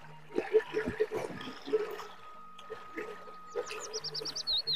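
Close-up chewing of a crunchy kerupuk cracker, a run of crisp crunches and wet mouth sounds over the first couple of seconds. Near the end a bird chirps in quick repeated notes.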